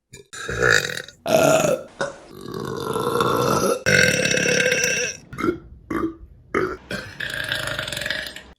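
Women burping, one burp after another with short breaks between: a few short burps, then two long drawn-out ones in the middle, then several shorter ones.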